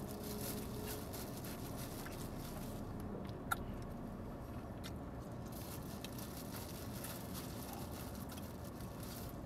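Faint crinkling of a small clear plastic bag and quiet chewing, with scattered small clicks and one sharper click about three and a half seconds in, over a steady low hum.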